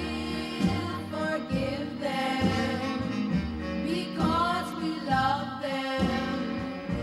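Background music: a song soundtrack with a melody line over bass notes.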